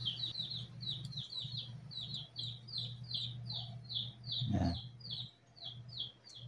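A small bird chirping over and over, about three short falling chirps a second, over a steady low hum. A brief low sound comes about four and a half seconds in.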